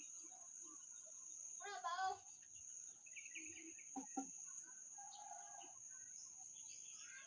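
Steady high-pitched drone of insects such as crickets, with a short distant call about two seconds in and two sharp knocks around four seconds.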